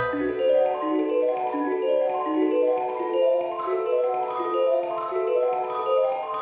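Background music: a light melody of short, evenly paced pitched notes stepping up and down, with no words.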